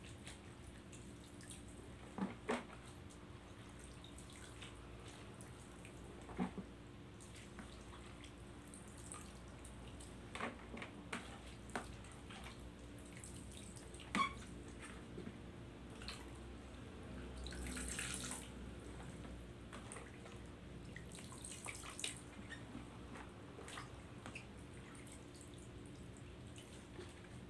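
Brine-soaked shredded bamboo shoots being scooped by hand and packed into a plastic jar for fermenting: quiet wet rustling and dripping of brine, with scattered soft clicks and knocks.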